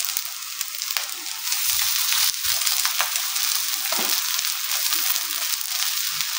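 Chicken and potato patties sizzling in a little oil on a hot tawa griddle, a steady hiss with crackling spatter. The sizzle picks up about a second and a half in, as a fresh raw patty goes onto the hot griddle.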